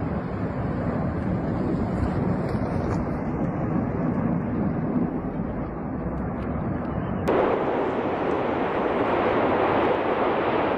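Erupting fissure of La Palma's Cumbre Vieja volcano giving a continuous low rumble, with wind buffeting the microphone. About seven seconds in the sound changes abruptly to a brighter, hissier roar.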